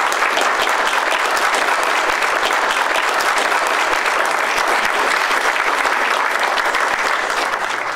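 Audience applauding, a dense, steady clapping that fades near the end.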